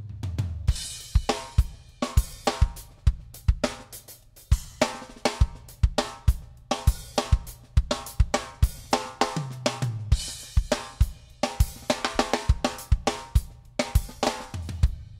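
Background music with a steady drum-kit beat (kick, snare, hi-hat and cymbals) over a bass line.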